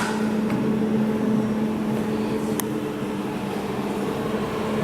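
Laser jewelry welding machine running with a steady hum, its water pump switched on to inject purified water. There is a faint click at the start and another about two and a half seconds in.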